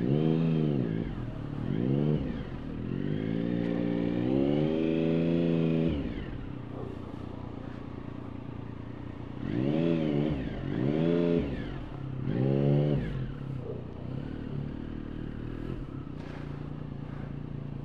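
Motorcycle engine revving up and dropping back in repeated short throttle blips, one held for about three seconds, then settling to a steady idle for the last few seconds.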